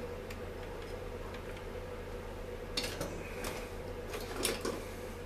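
Light clicks and clinks of small metal parts and tools being handled while working on a Stihl MS 250 chainsaw. A cluster of sharper clicks comes about three to four and a half seconds in, over a steady background hum.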